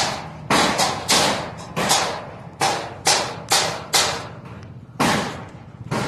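An irregular series of sharp knocks and thuds on steel, about two a second, each with a short ringing decay: construction work on a rebar mat over corrugated metal decking. The last knock comes about five seconds in.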